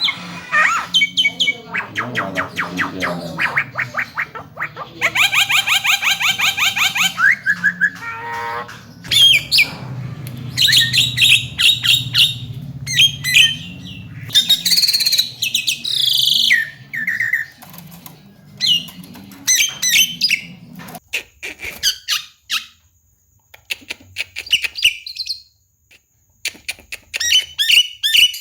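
Javan myna calling: a varied run of whistles, harsh squawks and chirps, with a fast rattling trill about five seconds in.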